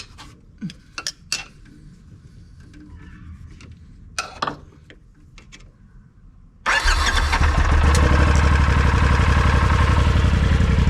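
Polaris RZR XP4 Turbo side-by-side's twin-cylinder turbocharged engine, hot-wired with screwdrivers to get round a failed brake sensor. A few light metal clicks and taps come first. About two-thirds of the way in the engine catches suddenly and runs on at a steady idle.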